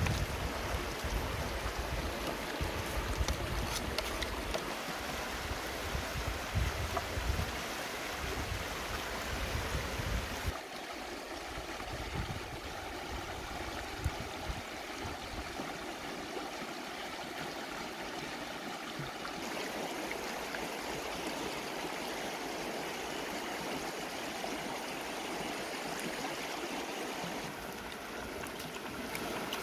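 Shallow river rushing steadily over rocks, with irregular low rumbles through the first ten seconds or so.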